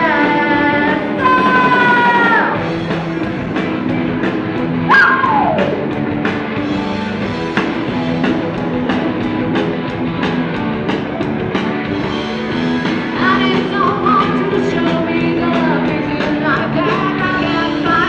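Live rock band playing amplified: electric guitars, drums and a singer, over a steady beat.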